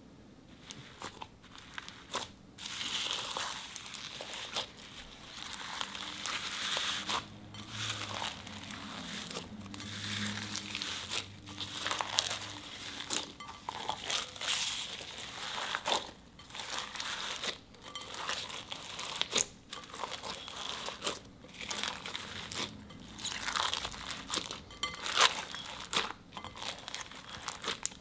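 Hands squeezing and kneading slime packed with tiny foam beads: a crunchy, crinkly crackle of beads and sticky slime, coming in repeated squeezes with short pauses between. It starts about two seconds in.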